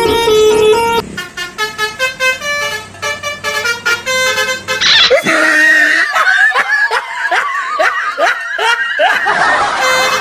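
Telolet-style multi-tone bus horn playing a quick tune of short stepped notes. About five seconds in it gives way to a run of quick rising whoops and warbling that lasts a few seconds.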